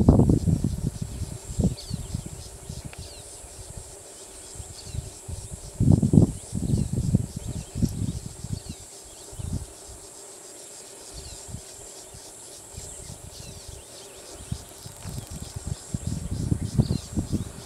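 Insects chirping steadily in fast, even high pulses, with irregular low rumbling bursts, loudest about six seconds in and again near the end.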